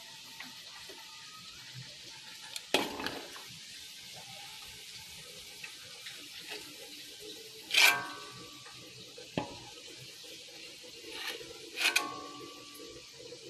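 Marinated chicken heads and pork frying in hot oil: a steady sizzle broken by several sharp cracks, the loudest about eight seconds in.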